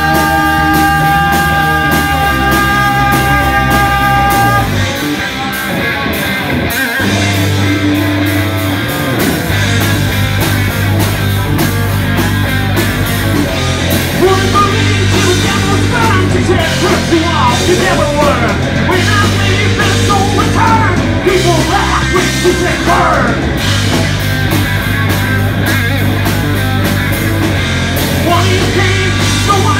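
Rock band playing live: electric guitar, bass guitar and drum kit. Held notes ring for the first few seconds, then the full band plays on, with singing from about halfway through.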